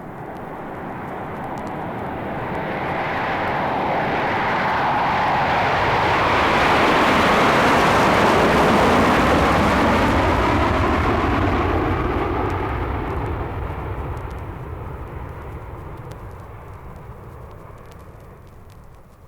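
Jet aircraft passing: engine noise swells to a peak about eight seconds in, then fades away, its pitch sweeping down as it goes by.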